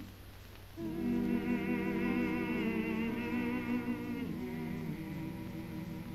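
Slow film soundtrack music: a melody of long held notes with vibrato, a new phrase entering about a second in.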